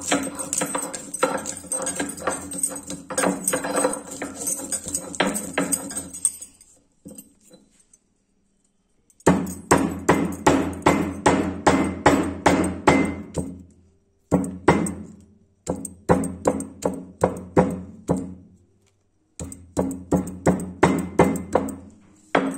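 Whole spices being crushed and ground on a stone slab with a stone roller (shil-nora): quick rhythmic strokes of stone on stone, about three a second, in runs of a few seconds broken by short pauses.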